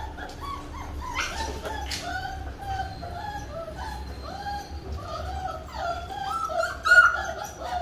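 A litter of five-week-old Labrador Retriever puppies whining together while being shampooed in a basin: a constant string of short, high, rising-and-falling cries from several pups at once, with one louder cry near the end.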